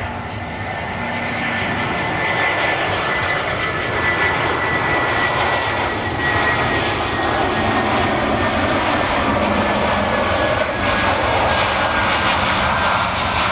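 Jet airliner on final approach passing close by, its engines making a steady roar with a high fan whine that slowly falls in pitch as it goes past.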